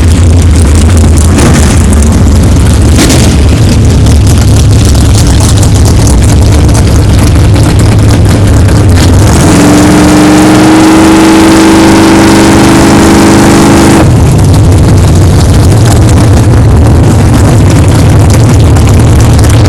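Vehicle engine running at a steady low drone, then about halfway through pulling hard under acceleration, its pitch climbing steadily for four to five seconds before it drops abruptly back to the low drone.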